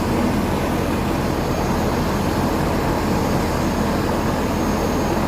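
Steady aircraft engine noise, an even rushing with a faint high whine coming and going.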